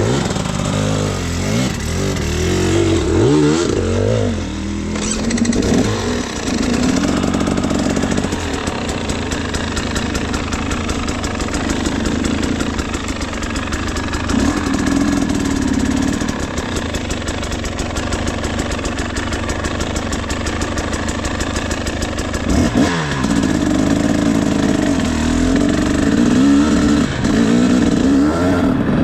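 KTM 300 EXC single-cylinder two-stroke dirt bike engine running under way, revving up and down in the first few seconds, then pulling steadily, with a quick rev about 23 seconds in.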